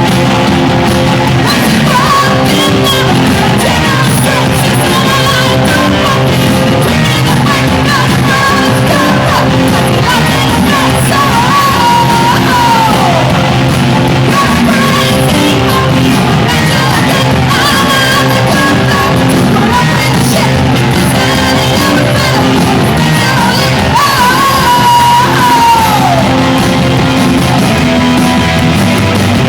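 A rock band playing loudly, guitar and drums under a singer's shouted, yelled vocals whose notes slide and drop off at the ends of lines.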